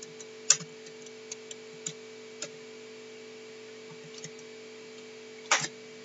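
Scattered single clicks of a computer keyboard and mouse, several seconds apart in places, the loudest about five and a half seconds in, over a steady faint hum.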